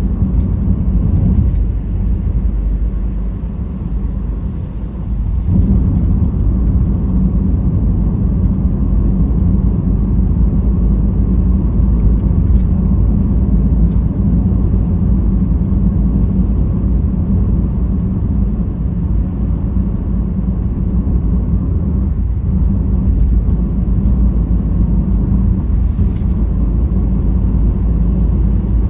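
Car driving, its engine and tyres making a steady low rumble that drops for a few seconds near the start and then comes back up.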